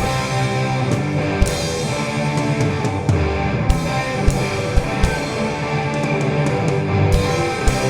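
Rock music with distorted electric guitar and drums.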